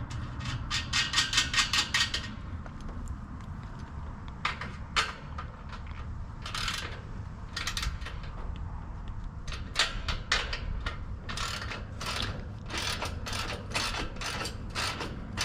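Ratchet wrench clicking in quick runs as nuts are tightened onto the basket mounting bolts, with a burst of rapid clicks near the start and more runs through the last few seconds.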